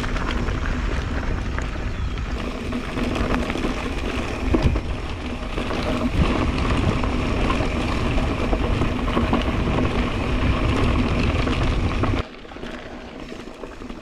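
Mountain bike riding noise: wind rushing over the camera microphone and the tyres rolling over a gravel track, with a few sharp knocks from bumps. About twelve seconds in it drops abruptly to a quieter rolling sound.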